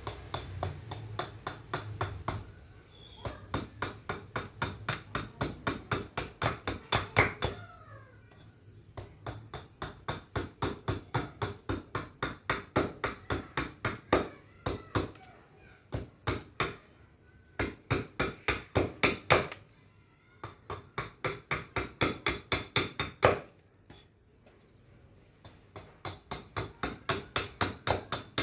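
Quick, even hammer blows during knife-handle making, about four a second, in runs of a few seconds with short pauses between; within each run the blows grow louder toward the end.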